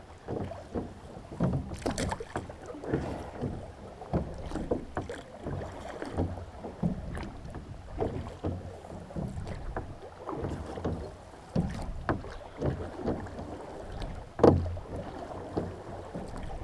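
A small rowboat being rowed: oar blades dipping and splashing, with repeated knocks from the oars every second or so. One louder thump comes near the end.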